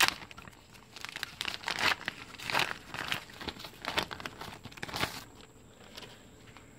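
Plastic parts bag holding a head gasket crinkling and rustling in irregular bursts as it is handled, stopping about five seconds in.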